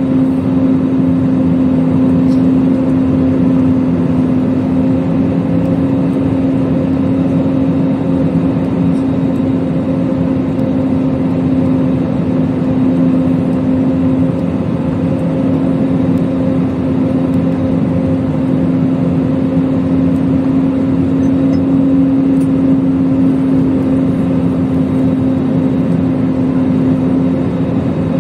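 Airbus A320 cabin noise on final approach: a steady jet-engine drone with rushing airflow and a low, even hum.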